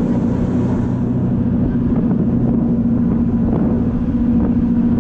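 Jet boat's twin 496-cubic-inch V8 engines running steadily underway, a low even drone with a constant pitch.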